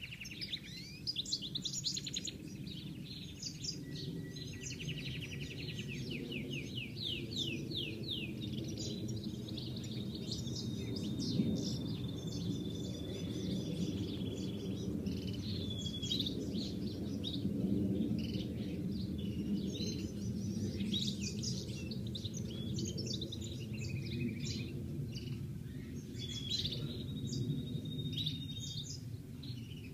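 European goldfinch singing continuously: a fast twittering song of quick sweeping notes, with buzzy trills and a long, steady held note near the middle and again near the end. A steady low background noise runs beneath it.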